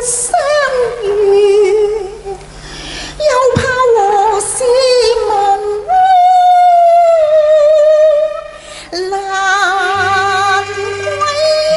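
A woman singing a Cantonese opera aria into a microphone, her voice gliding and wavering, with one long held note in the middle, over instrumental accompaniment that grows fuller near the end.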